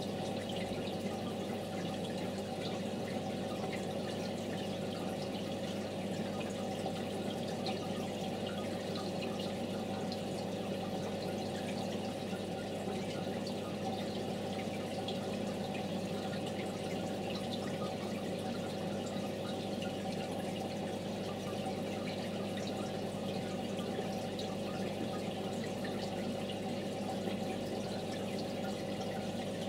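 Aquarium aeration: water bubbling and trickling over a steady low hum.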